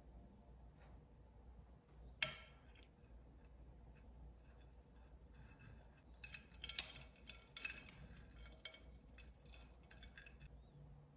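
A spoon clinking and scraping on a ceramic plate with chopped nuts rattling, as the nuts are spooned and pressed onto a chocolate-coated ice cream bar; one sharp clink about two seconds in, then a run of small clinks and scrapes through the second half.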